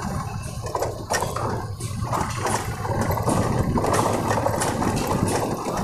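A motorcycle engine runs steadily at low speed on a rough dirt street, heard from the rider's seat, with scattered clicks and rattles.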